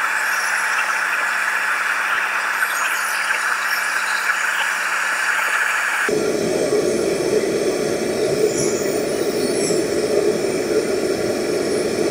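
Gas blowtorch flame burning with a steady hiss while it heats a flanged pump body for silver soldering. About six seconds in, the sound changes abruptly to a lower, deeper rush.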